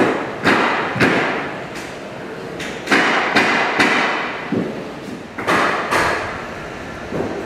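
Construction hammering: loud, echoing blows in groups of two or three, about half a second apart.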